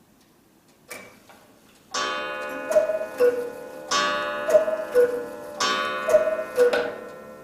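HerrZeit cuckoo clock's 8-day Regula rack-strike movement striking the hour: a click about a second in as the strike releases, then three cuckoo calls, each a two-note falling call paired with a ringing strike, counting three o'clock.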